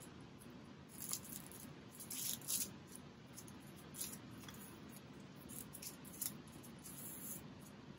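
Sterile serological pipette's plastic-and-paper wrapper crinkling and tearing as it is peeled open, with a few short crinkles and clicks as the pipette is pushed into a pipette controller.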